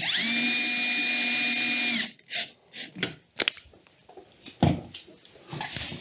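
Cordless drill-driver running for about two seconds, driving a screw into the washing machine's lower front panel: a steady whine that spins up quickly and then cuts off. A few light clicks and knocks follow.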